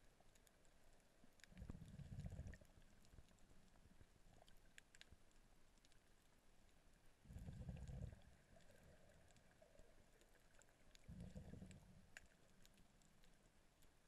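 Underwater ambience heard through a camera underwater: three dull low rumbles, each about a second long and a few seconds apart, over faint scattered clicks.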